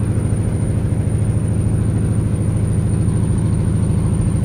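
Straight-piped Peterbilt semi truck's diesel engine pulling under load, heard from inside another truck's cab: a loud, steady deep rumble with an even fast pulse.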